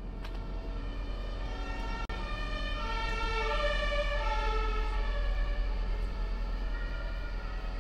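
Two-tone emergency-vehicle siren going back and forth between a high and a low note, growing louder to a peak about four seconds in, then fading as it passes.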